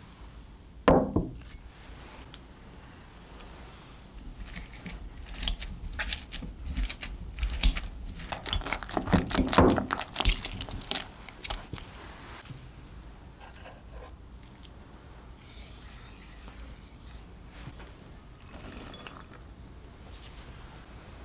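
Boiled potatoes being mashed with a metal wire potato masher in a glass bowl: a run of soft, squashing strokes with clicks of the masher against the glass. One sharp knock comes about a second in, as the glass bowl is set down, and after the mashing only faint soft sounds remain.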